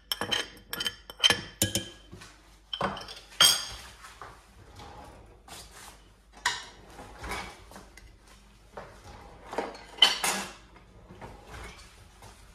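Metal spoon clinking and scraping against a ceramic plate: a quick run of clinks in the first two seconds, then scattered clinks and knocks, the loudest a little before the end.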